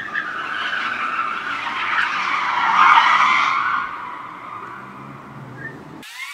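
Car tyres squealing as the car slides in a long skid. The squeal swells to its loudest about three seconds in, fades, and breaks off abruptly near the end.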